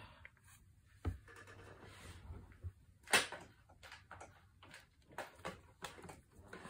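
Handling noises from cast-cement denture halves being fitted together and turned over by hand: a few small clicks and knocks, the loudest one about three seconds in.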